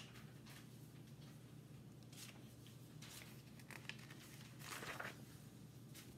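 Faint paper rustles from a picture book's page being turned, a few soft touches with the clearest rustle about five seconds in, over quiet room tone.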